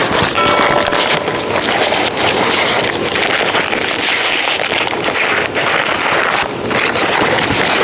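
Brown kraft-paper wrapping crinkling and rustling as it is worked off a potted plant, close to a collar microphone, with a few brief pauses in the handling.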